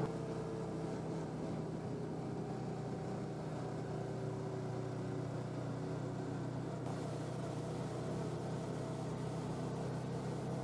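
Steady low engine hum, even in pitch, with no revving.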